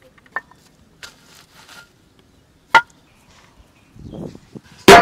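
Fired bricks knocking together in a few sharp, separate clacks as they are set around a charcoal bed. Near the end a large metal cooking pot clangs with a ringing tone, the loudest sound.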